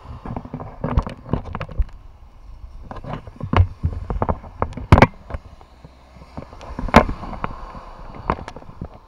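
An umbrella canopy held close to the microphone, buffeted by wind and rain, making irregular sharp pops and knocks over a low rustle, with two loud cracks about five and seven seconds in.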